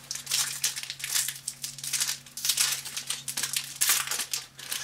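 Foil wrapper of a Magic: The Gathering booster pack crinkling and crackling as it is handled and torn open by hand, in a dense, irregular run of crackles. A faint steady hum sits underneath.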